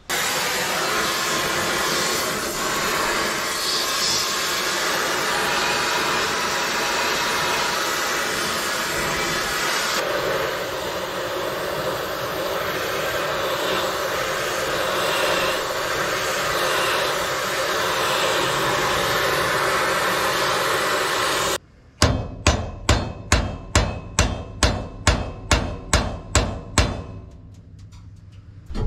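A gas torch roaring steadily as it heats the seized hoist-cylinder push rod fitting. It cuts off suddenly, and then come about fifteen hammer blows on the rod, about three a second, as he tries to knock the seized push rod out of its T-bar fitting.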